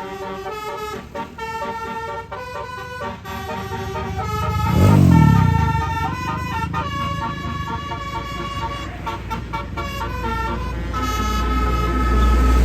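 Bus's Basuri telolet musical horn playing a quick tune of short, changing notes. About five seconds in there is a loud swell whose pitch falls, and near the end a low engine rumble grows louder.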